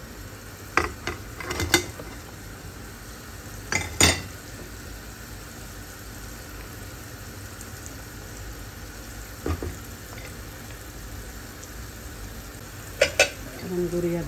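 Curry simmering with a steady sizzle in a steel saucepan while taro pieces are tipped in from a ceramic plate and stirred with a wooden spoon. A few sharp knocks and scrapes of spoon and plate against the pot, the loudest about four seconds in, with a cluster near the end.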